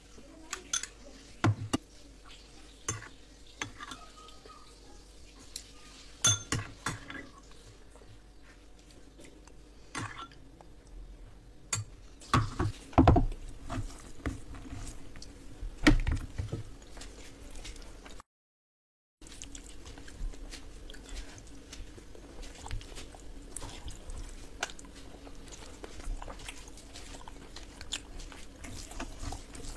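Fingers squishing and mixing rice with curry gravy on a steel plate, with scattered sharp clicks and clinks against the plate, loudest in a cluster around the middle. The sound cuts out entirely for about a second past the middle.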